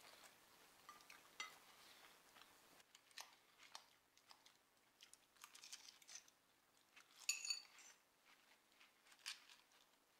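Quiet eating sounds at a table: faint chewing and scattered light clicks of a fork, with one short ringing clink of the fork against a salad bowl about seven seconds in.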